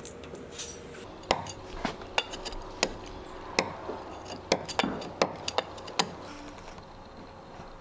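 Mallet striking a chisel handle as the chisel cuts into a boat's hardwood stem: about a dozen sharp taps at an uneven pace, stopping about six seconds in.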